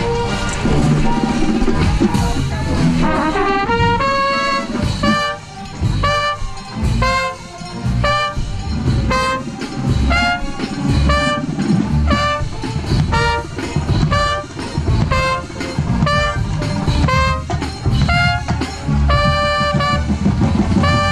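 Drum corps brass line playing, a trumpet right at the microphone loudest: short accented chords repeated about once a second, with drums beneath.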